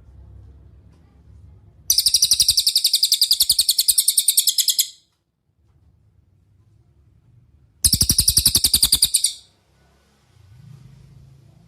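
Cililin songbird singing two fast trills of rapidly repeated high notes, about ten a second: the first lasts about three seconds, the second, about six seconds in, about a second and a half. A faint low hum lies underneath.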